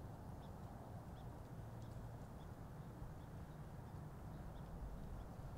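Quiet outdoor ambience: a low, steady rumble with faint, short, high chirps scattered through it, roughly one or two a second at irregular intervals.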